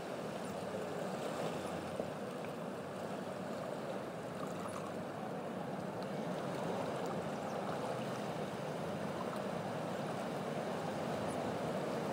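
Steady rushing noise with a few faint ticks.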